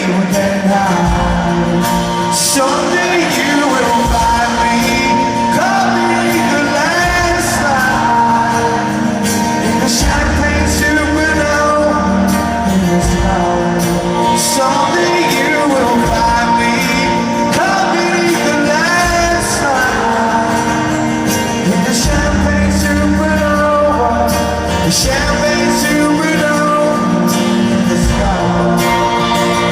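Live rock band playing with singing throughout.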